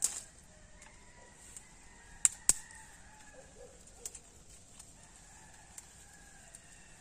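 Dry twigs snapped by hand: a handful of sharp cracks, the two loudest close together about two and a half seconds in. Chickens cluck faintly in the background.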